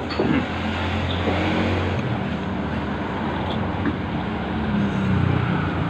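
Steady road traffic running past, with a low engine hum underneath. A short clink, like cutlery against a bowl, comes right at the start.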